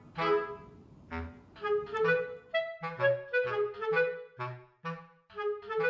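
Background music: a light melody of short, separate notes on a clarinet-like woodwind.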